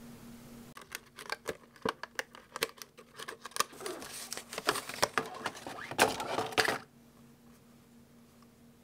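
Hands unpacking a silicone pencil case from its clear plastic package: a quick run of sharp plastic clicks, taps and crinkles that stops after about six seconds.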